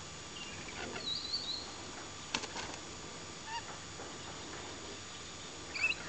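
Rainbow lorikeets giving short, scattered shrill calls and chirps, with a run of calls about a second in and the loudest call just before the end. A sharp click a little past two seconds.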